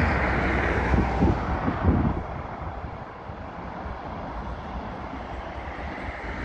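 Road traffic noise: a vehicle passing, louder for the first two seconds and then fading to a steady, quieter hum.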